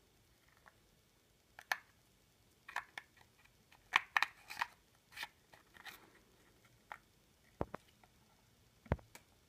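Small cardboard chewing-gum prank toy being handled: scattered clicks and rustles as the gum stick is pushed back into its box, busiest about four to six seconds in, then two sharper knocks near the end as the box meets the table.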